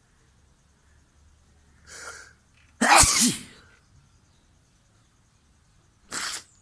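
A sneeze: a soft 'ah' intake of breath about two seconds in, then one loud, sudden sneeze about a second later. A short, sharp burst comes near the end.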